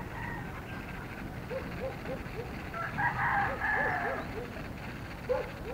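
A rooster crows once, for about a second, starting about three seconds in. Short low hoots repeat in runs of three or four throughout.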